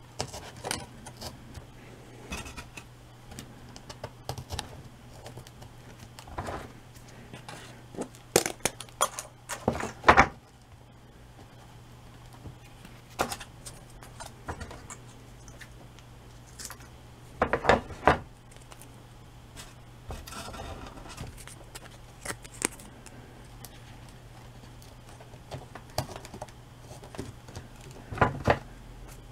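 Hands handling and fitting strips of corrugated cardboard: scattered rustles, scrapes and small clicks, with a few louder clusters of knocks, over a steady low hum.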